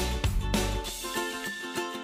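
Background music: a plucked-string tune over a steady beat, the low drum and bass part dropping out a little under a second in.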